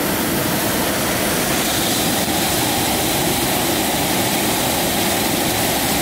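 Loud, steady rush of water from a small waterfall on a mountain stream.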